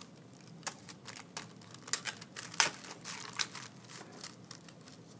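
Mod Podge-coated tissue paper being torn and pulled off the edges of a small wooden cutout by hand: a scattering of irregular short rips and crinkles.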